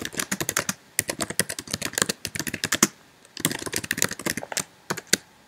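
Typing on a computer keyboard: quick runs of key clicks, a short pause about three seconds in, then more keystrokes, ending with two separate key presses near the end.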